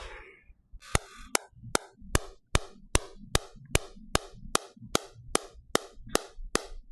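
Radial shockwave therapy device firing on the ankle: a steady train of sharp clacks, about two and a half a second, starting just under a second in.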